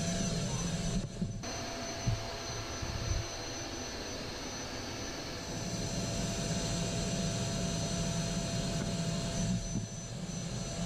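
Vacuum cleaner running steadily, its suction drawing through a clear plastic juice bottle fitted on the hose as a nozzle, with a steady high whine over the rushing air. The sound thins briefly about a second in and again near the end as the airflow changes.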